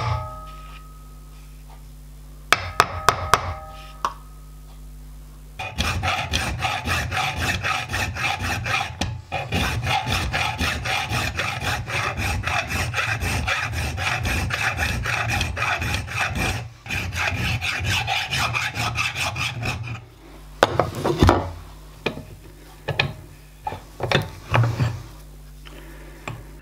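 A hand file working a metal bar clamped in a bench vice, in steady back-and-forth strokes for about fourteen seconds, filing it to width. Before it come a few light metallic taps that ring briefly, and after it scattered knocks and taps as the work is handled in the vice.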